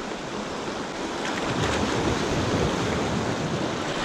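Sea surf washing onto the shore, swelling louder about a second in, with some wind on the microphone.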